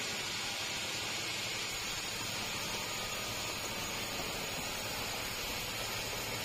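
Sawmill machinery running: a steady hiss with a faint low hum beneath.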